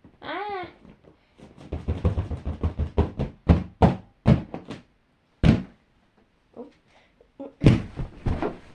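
A short wavering vocal moan, then a run of sharp crackles and knocks as a birthday balloon is crushed and bitten, in irregular bursts with pauses.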